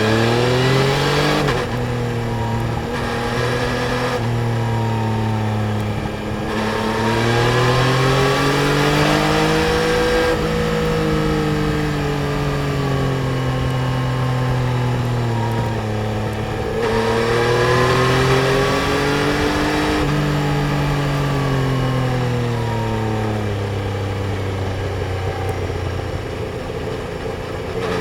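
Yamaha Tracer 900 GT's three-cylinder engine under way, its pitch rising and falling as the rider accelerates and eases off, with a few sudden pitch jumps at gear changes and a steady rush of wind and road noise underneath.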